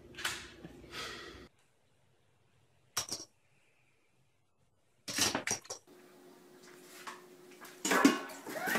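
Short, separate bursts of knocks, scuffs and clatter as startled cats leap and scramble on hard floors, broken by spells of dead silence, with the loudest clatter near the end.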